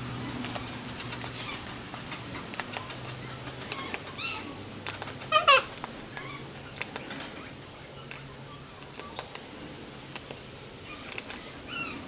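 Sulphur-crested cockatoo cracking seed from a hand with its beak: a run of sharp, irregular clicks. About five seconds in, a short bird call, the loudest sound.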